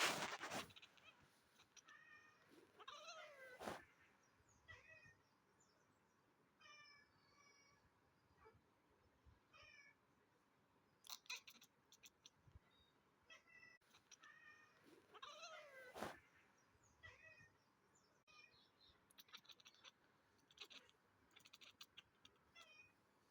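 Domestic cat meowing and chirping at pigeons in a string of short, separate calls, with a longer bending meow about three seconds in and another past the middle. Scattered sharp clicks fall between the calls.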